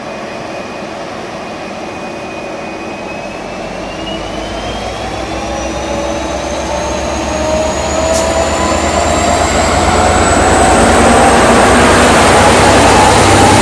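V/Line N class diesel-electric locomotive pulling a passenger train and passing close by. Its turbocharged EMD two-stroke V12 diesel grows steadily louder as it approaches, with a whine that rises in pitch as it gathers speed.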